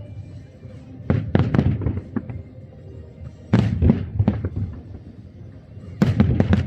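Aerial fireworks bursting in three quick volleys of several sharp bangs each: one about a second in, one midway, and one near the end.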